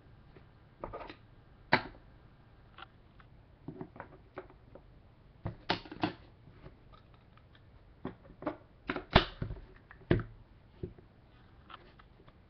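Trading cards being handled on a tabletop: irregular light clicks and taps of cardboard being set down, picked up and slid, with the sharpest clicks about two, six, nine and ten seconds in.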